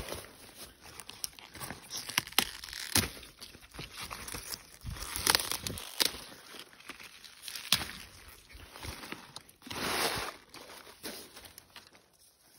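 Collard leaves being snapped off their stalks by hand, a run of sharp snaps and cracks among rustling leaves and plants, with a longer rustle about ten seconds in.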